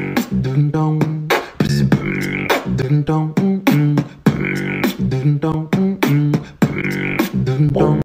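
Bass-boosted ringtone music: a short loop of beats and vocal-like "dun dong" sounds, repeating over and over with heavy low end.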